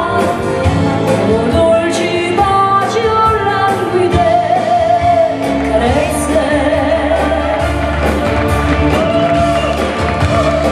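A live pop dance band playing: a woman singing a wavering melody into a microphone over electric guitars, keyboard, bass and a drum kit keeping a steady beat, amplified in a large hall.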